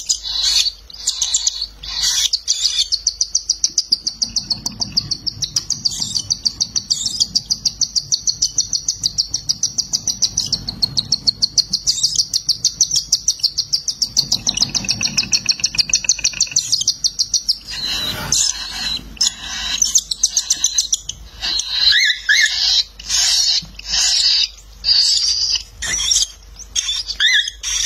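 Cockatiel chicks begging while being fed: a fast, even string of high, rhythmic calls. About halfway through it breaks into separate, uneven chirps.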